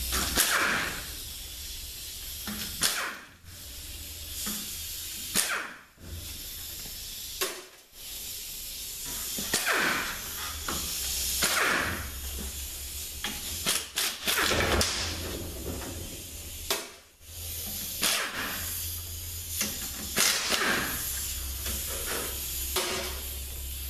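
A power ratchet spinning out the 42RLE transmission's 10 mm pan bolts one after another, in a series of short runs with brief pauses between them.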